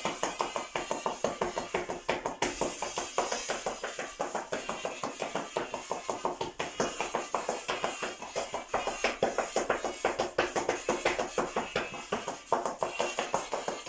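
Mexican folk dance music playing, over it a dense run of quick sharp taps: a dancer's shoes striking zapateado footwork on a tile floor.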